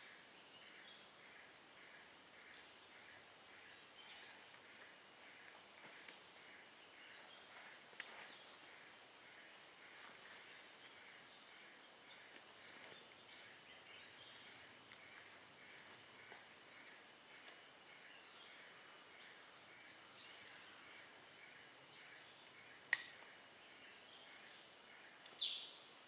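Rainforest insect chorus: a steady high-pitched drone from insects, with a second insect call pulsing a few times a second lower down. A sharp click about 8 seconds in and a louder one near 23 seconds, and a short falling chirp just before the end.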